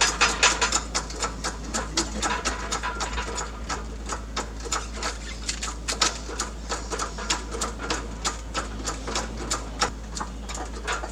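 Chain hoist being worked to lift an engine, clicking steadily at about four clicks a second.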